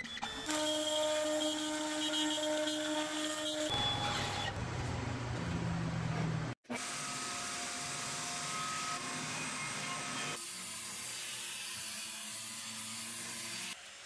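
Power-tool cutting in short edited clips. First a Stepcraft M.1000 CNC router's spindle whines steadily as it cuts wood. After an abrupt cut about six and a half seconds in, a table-mounted router runs with a bearing-guided bit as a wooden tray edge is fed past it.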